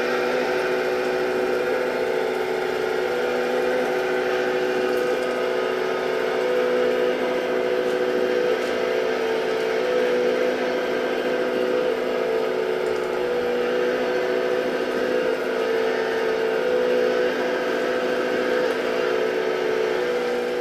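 Hydraulic pump of a radio-controlled model excavator whining steadily while the boom and arm swing and work, its pitch holding nearly level throughout.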